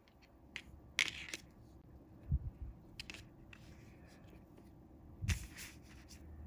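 Sporadic handling noises from tying fishing line to a hook: soft rustles and sharp clicks of the line and fingers, with a low thump about two and a half seconds in and another about five seconds in as the hand and hook touch the table.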